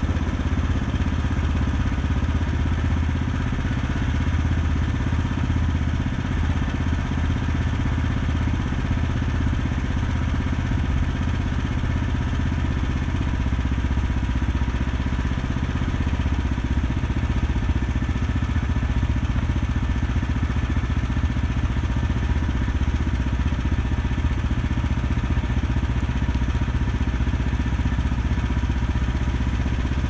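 Gasoline engine of a Woodland Mills HM126 portable bandsaw sawmill running steadily, with no change in speed.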